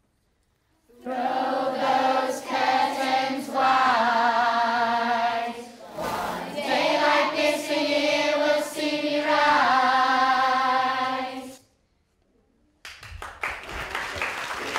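A group of voices singing a chorus of a charity song in two phrases with a short break between them. After a brief pause near the end, clapping starts.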